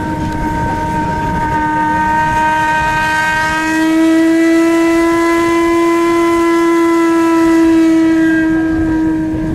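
The paddle steamer Stadt Zürich's ship horn sounding one long, steady blast that swells slightly about four seconds in.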